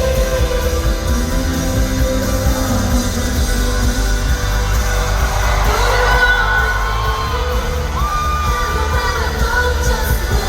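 Live amplified pop-rock music through a concert PA, with a female singer's voice over the band and heavy bass, and some audience yells.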